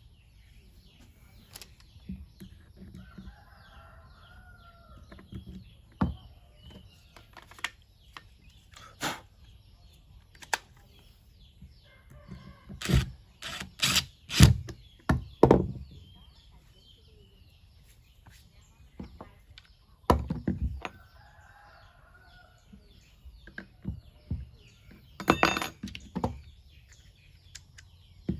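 Scattered sharp clicks and knocks from handling the drill and its packaging, loudest in a quick run of knocks about halfway through. A chicken clucks twice in the background, and small birds chirp.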